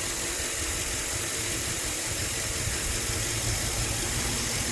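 2005 Land Rover LR3's 4.4-litre V8 engine idling steadily.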